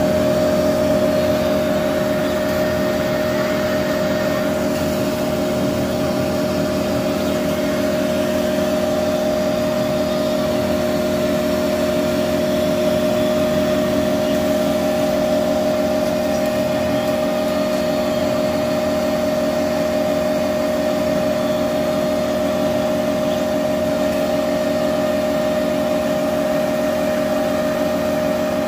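Laser cutting machine running while it cuts a phone back-film sheet: a steady mechanical hum with a constant mid-pitched whine over it.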